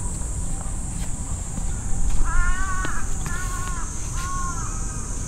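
A crow cawing three times in quick succession, each call short and arched in pitch.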